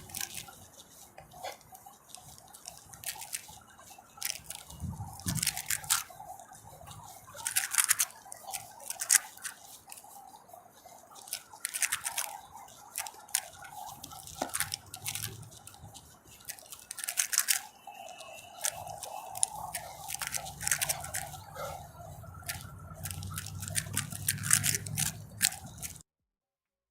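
Irregular sharp plastic clicks and clacks of a Rubik's Cube being turned one-handed, mixed with the catches of balls being juggled in the other hand. The sound cuts off suddenly near the end.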